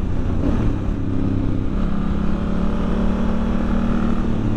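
Honda Africa Twin's parallel-twin engine running at steady revs while riding, heard over wind and road noise, with the engine note rising a little near the end.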